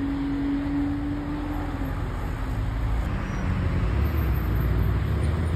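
Street traffic with car engines running: a steady low rumble, a steady hum for the first two seconds, and a deeper engine rumble growing louder about three and a half seconds in.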